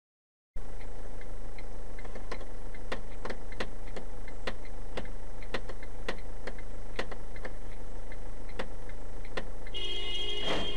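Car turn signal clicking steadily in the cabin, about three ticks a second, over a low engine hum, starting after half a second of silence. Near the end a brief pitched tone and a single loud thump as one SUV bumps into the back of another.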